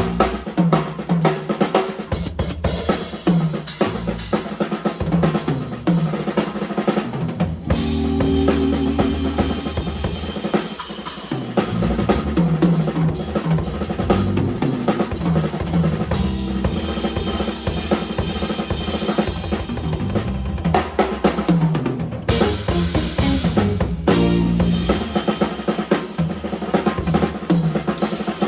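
Drum kit played in a busy solo: bass drum, snare hits and rimshots in quick fills and rolls, with no pauses.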